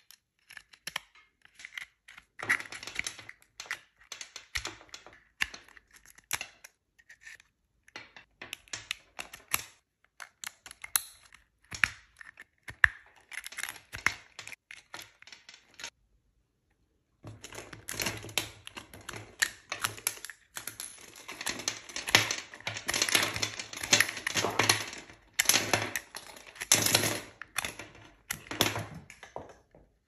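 A USB-C hub and its cables being handled: plugs clicking into and out of its ports, plastic and metal tapping and rubbing in quick irregular clicks. The clicks stop for about a second around the middle, then return busier and louder.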